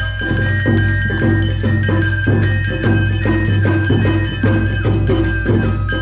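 Awa Odori festival music played live by a narimono band: a bamboo flute holds a high melody over shamisen, a ringing hand gong and drums at a brisk, even beat.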